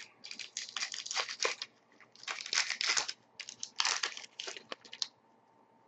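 A hockey card pack wrapper crinkling and tearing as it is opened, in a quick run of crackles and rips that stops about five seconds in.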